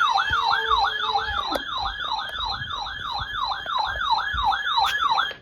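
Electronic yelp siren: a loud tone sweeping rapidly up and down, about three times a second. It cuts off just before the end.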